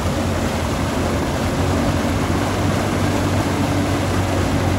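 Lifted ATV's engine running steadily under load as it ploughs through deep, watery mud, with the churning splash of its mud tyres throwing up muck.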